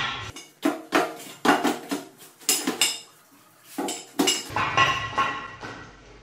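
Square steel tubes clanking and ringing as they are set down and shifted into a rectangular frame on a metal workbench: a string of sharp metal knocks with a short lull near the middle.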